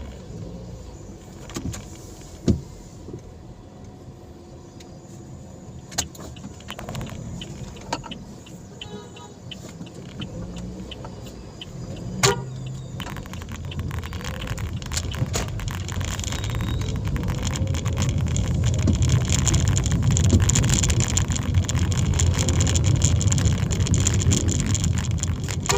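Car on the move: a few sharp clicks and knocks over a low rumble, then from about halfway engine and road noise build up and stay loud as the car picks up speed.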